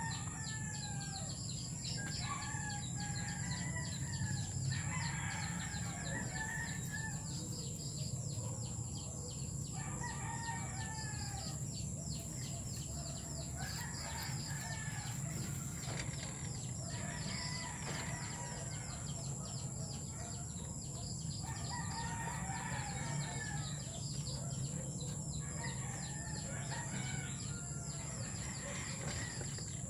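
Chickens calling over and over: roosters crowing and hens clucking, each call lasting a second or two. Underneath is a fine crackling rustle of dry leaves and nesting fur as hands work through a rabbit nest box.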